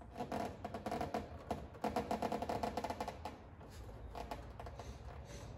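Background music with a percussive beat.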